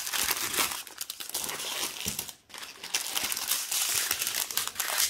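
Small clear plastic bags of diamond painting drills crinkling and rustling as they are handled and sorted, with a brief lull about two and a half seconds in.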